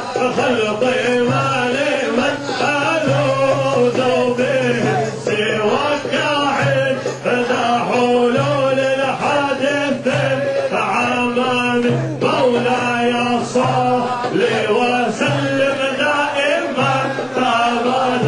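Male voices chanting devotional Sufi hadra singing over music, with a low note that comes and goes in a regular pattern.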